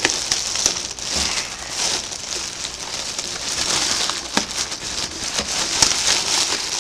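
Clear plastic packaging bag crinkling and rustling as it is handled and pulled off a new helmet, with a few sharp crackles.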